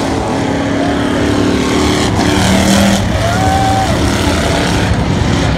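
Race cars' engines running loud as they lap a dirt oval, with steady engine drone.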